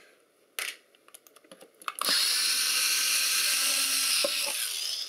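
Small clicks and handling knocks, then an electric screwdriver runs steadily for about three seconds, backing out a screw.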